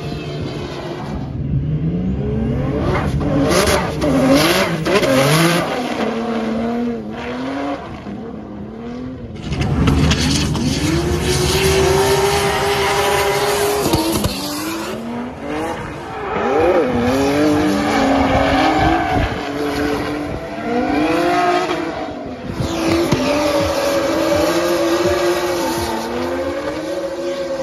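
Twin-turbo Nissan 350Z VQ35DETT V6 drifting: the engine revs up and down in repeated rising and falling sweeps over a steady haze of tyre squeal.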